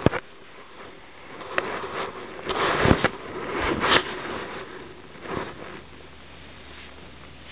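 Footsteps on a staircase: a sharp click, then a handful of irregular thuds and scrapes, loudest about three seconds in and dying away by about six seconds.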